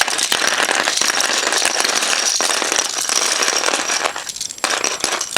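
Loose plastic pieces of a disassembled Eastsheen 4x4 puzzle cube clattering and rattling against each other as the puzzle falls apart. It is a dense run of clicks that thins out about four seconds in, then comes back briefly near the end.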